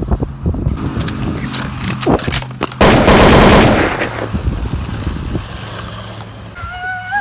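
Inline skate wheels clattering and rattling rapidly over rough pavement, then a loud harsh scraping burst about three seconds in that lasts about a second and fades.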